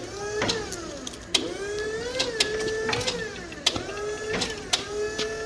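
A small electric motor whining in several short runs, starting and stopping with brief swoops in pitch between them, with a few clicks.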